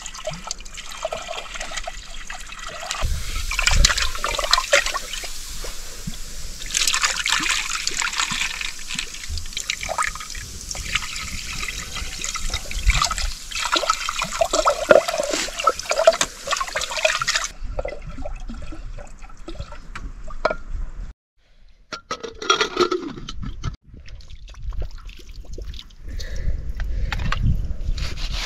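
Water splashing and trickling, as in hand-washing food in a pot, with a break about three-quarters of the way through after which the splashing is sparser.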